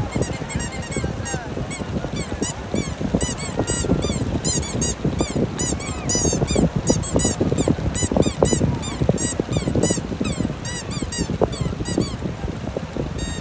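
A toy squeaking in a rapid, regular run of short high-pitched chirps, about three or four a second, over a steady rumble of wind and surf.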